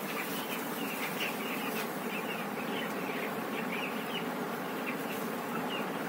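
A flock of 13-day-old broiler chicks cheeping, many short high peeps overlapping continuously, over the steady hum of a running fan.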